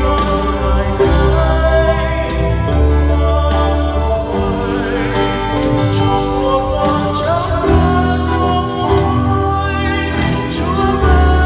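A slow worship song sung live: a man's voice singing into a microphone over instrumental accompaniment, with held, wavering notes above a steady bass.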